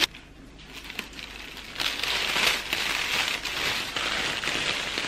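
Tissue paper crinkling and rustling as it is crumpled by hand around a bag, a dense crackle that is faint at first and grows louder about two seconds in.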